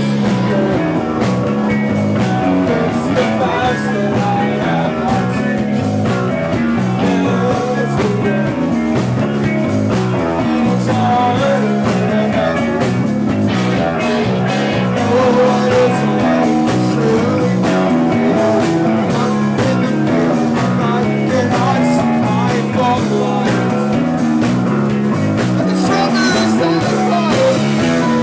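Live rock band playing loud, with two electric guitars, bass guitar and drum kit.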